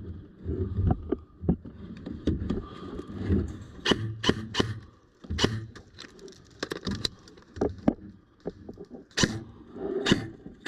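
Airsoft gunfire: sharp snapping shots fired singly at irregular intervals, a few in quick succession about four seconds in and again near the end, over a low uneven rumble.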